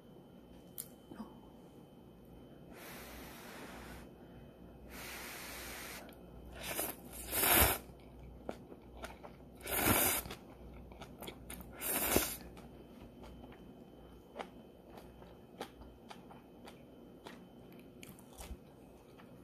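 Someone eating instant ramen with chopsticks: three loud slurps of noodles about two seconds apart, with chewing and light clicks between. Two soft hissing stretches come earlier.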